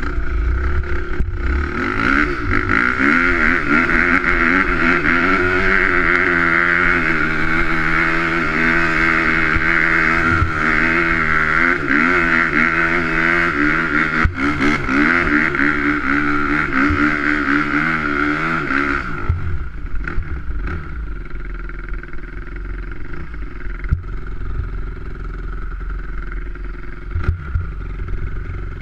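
Off-road motorcycle engine running under throttle while riding, its revs rising and falling; about twenty seconds in the throttle is eased off and the engine sound drops to a quieter, lower running.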